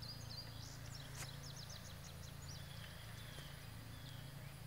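Faint outdoor birdsong: high, short chirps, with a quick run of about six in the first half, over a steady low hum, and a single sharp click about a second in.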